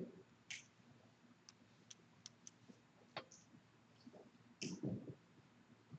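Near silence in a quiet room, broken by scattered faint clicks and small knocks; the loudest comes about three-quarters of the way through.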